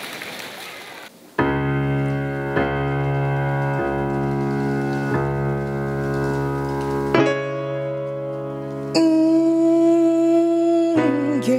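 Live band keyboard playing slow, sustained chords as a song intro, the chord changing every second or two. Near the end a male voice comes in singing with a wavering pitch.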